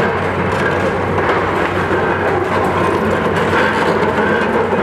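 Caterpillar high-reach demolition excavators running their diesel engines under a steady low hum, with continuous crunching and clattering as concrete and steel roof structure is torn down.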